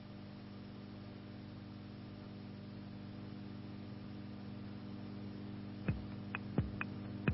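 Steady low electrical mains hum. About six seconds in, a few short, sharp plucked-string notes come in as the background music starts again.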